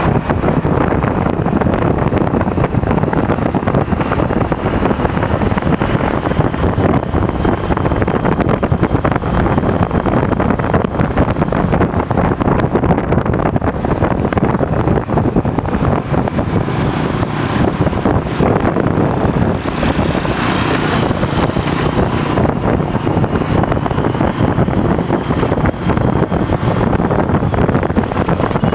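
Three-wheeled motorcycle taxi running steadily at riding speed, engine and road noise heard from the passenger seat, with wind buffeting the microphone.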